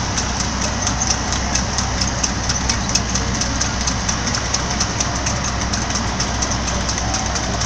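Steady hum and road noise of a car driving close behind two trotting harness horses, with the quick, regular clip-clop of their hooves on the tarmac, about four or five beats a second.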